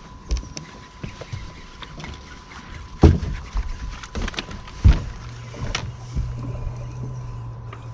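Fishing from the deck of a bass boat while a hooked bass is fought: two loud thumps on the deck, about three and five seconds in, among light clicks. A low steady hum sets in just after five seconds.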